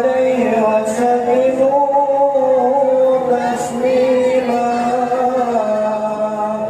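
A male lead singer (munsyid) singing a sholawat in a long, ornamented melody, holding and bending each note for a second or more.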